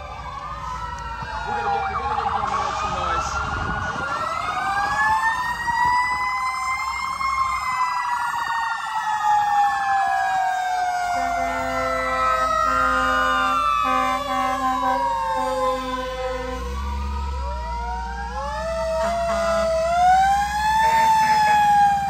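Several fire truck sirens wailing at once, their pitches rising and falling out of step with each other, over the low rumble of the trucks' engines. The sound swells near the end as a ladder truck passes close by.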